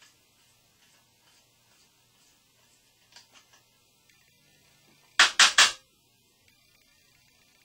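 Metal parts of a MAP gas soldering torch being handled as its clogged tip is unscrewed: faint clicks, then three sharp clacks in quick succession about five seconds in.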